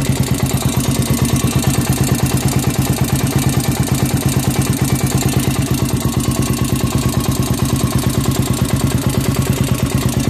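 Honda 400EX ATV's single-cylinder four-stroke engine idling with a steady, rapid pulse. Under it runs a knock or tick that the owner suspects comes from the bottom end after a rebuild.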